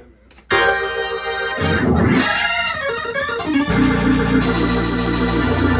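Hammond C3 organ played through a two-speed Leslie 22R rotating speaker: after a brief pause a held chord comes in, the tone sweeps and swirls in the middle, then a full chord with bass underneath rings on with a fast, regular throb from the spinning rotors.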